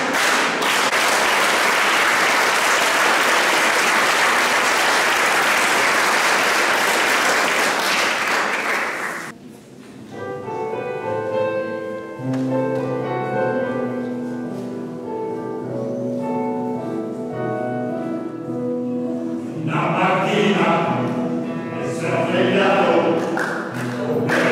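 Audience applauding for about nine seconds, the clapping stopping abruptly. Then a mixed choir begins singing, soft held chords at first with more voices joining a couple of seconds later, and fuller singing with words near the end.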